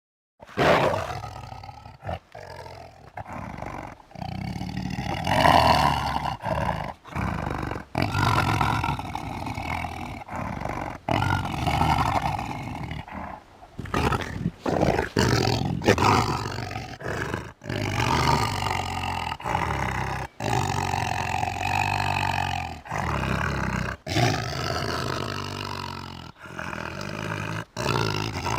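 Tiger growling and snarling: a run of rough, pitched growls, each one to two seconds long, with short breaks and abrupt cuts between them.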